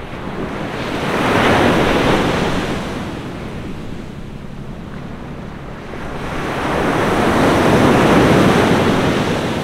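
Ocean surf: two waves break and wash in, the first peaking about two seconds in and the next, longer one building from about six seconds and peaking near eight seconds.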